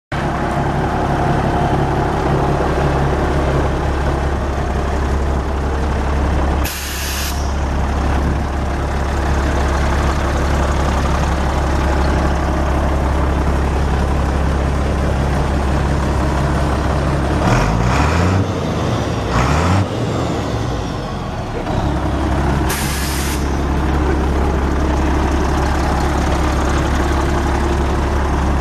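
The International DT466 inline-six turbo diesel of a 1990 International 4900 bucket truck idling steadily. Two short sharp hisses of air released from the truck's air brake system come about a quarter of the way in and again about four-fifths of the way in, and the engine note briefly shifts in pitch a little past halfway.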